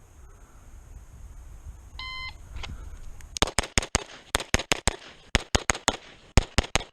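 A shot timer beeps once about two seconds in. Then a Beretta 92 Elite LTT 9mm pistol fires about sixteen rapid shots in four quick strings of four, with a short pause between strings.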